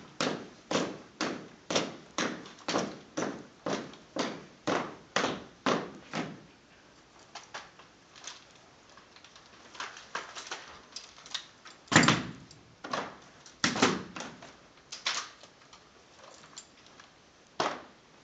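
Clacks and stamps of a rifle drill team on a hard floor: a steady cadence of about two strikes a second for the first six seconds, then scattered single clacks and thuds from rifle handling and heel strikes, the loudest about twelve seconds in.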